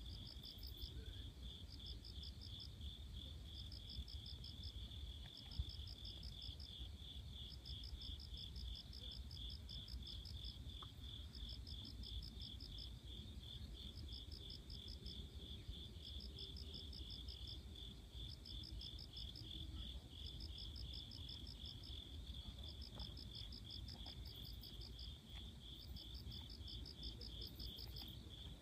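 Night-calling insects chirping: one keeps up a steady run of pulses, while another, higher, gives short rapid trills every second or two, over a faint low rumble.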